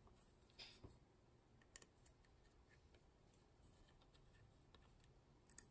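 Near silence with a few faint clicks and rustles of fingers handling a Raspberry Pi circuit board and peeling off a thermal pad. The sharpest clicks come near the end.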